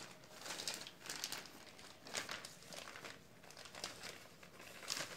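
Anti-static plastic bag crinkling in irregular bursts of rustling as a motherboard is slid out of it by hand.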